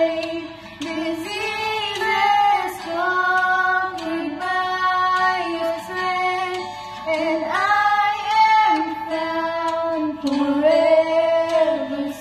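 Two girls singing a Christian worship song together in duet, with long held notes.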